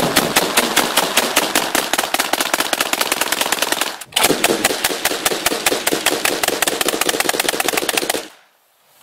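AA-12 fully automatic 12-gauge shotgun firing long bursts of rapid, evenly spaced shots. There is a brief break about four seconds in, and the firing stops shortly after eight seconds.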